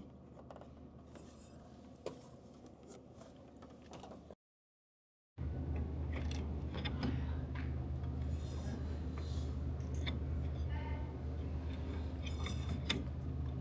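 Small clicks and scrapes of parts being handled. After a brief dropout to silence, a steady low hum sets in, with more clicks and scrapes over it.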